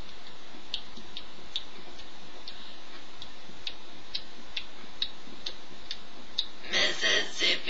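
Steady light ticking, a little over two ticks a second, over a low hiss. Near the end come a few louder short noises.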